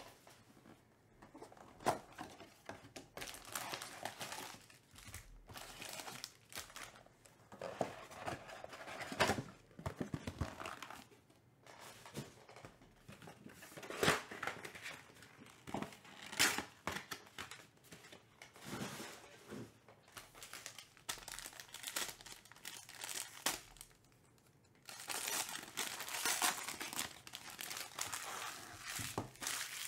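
Foil trading-card packs and their box being handled and torn open: irregular crinkling, rustling and tearing of foil wrappers, busiest near the end.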